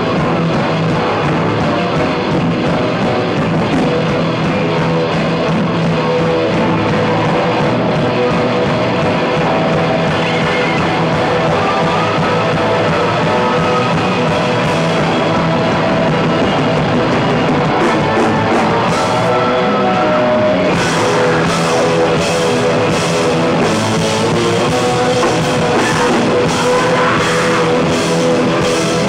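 Live rock band playing loud: electric guitars ringing out over drums, with the drum hits coming through strongly in the last third.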